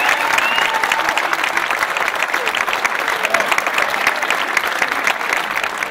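Audience clapping, with a few voices calling out over the applause.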